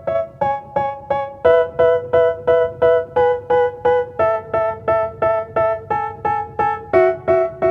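Background music: a keyboard plays short repeated chords, about three strikes a second, stepping to a new chord every second or so, the opening of a rap track before the vocals come in.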